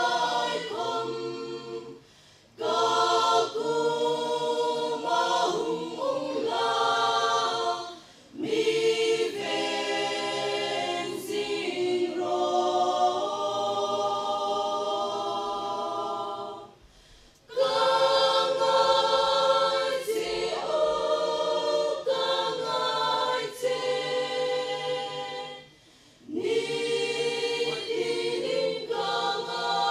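A mixed choir of men and women singing a cappella, phrase by phrase, with short breaks between the phrases.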